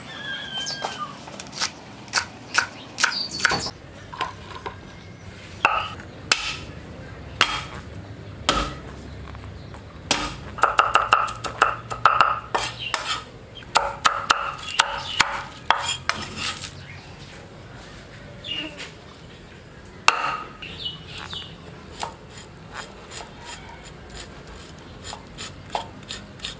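Meat cleaver chopping on a wooden chopping block: sharp single chops spaced irregularly, with runs of fast, rapid chopping in the middle.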